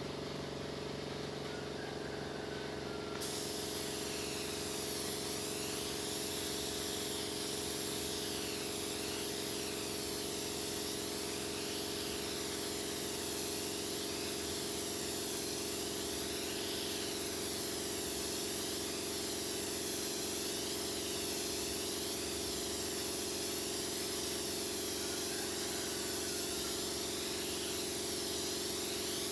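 Air spray gun hissing steadily as finish is sprayed on the wooden bedug drum, the hiss opening up about three seconds in. A steady machine hum runs underneath.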